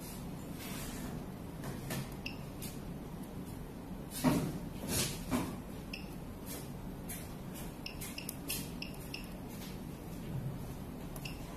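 Short electronic beeps from a veterinary ECG machine, each with a click, at irregular intervals, over a steady low hum. A brief spell of louder handling noise comes about four to five seconds in.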